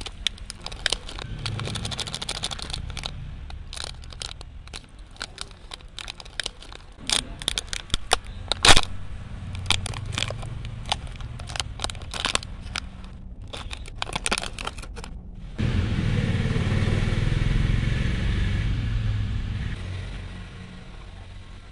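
Thin plastic snack wrapper crinkling, crackling and tearing as a black sesame chikki bar is unwrapped by hand, with one sharper crack about nine seconds in. After about fifteen seconds the crinkling gives way to a steady low rumble that lasts about five seconds and fades out.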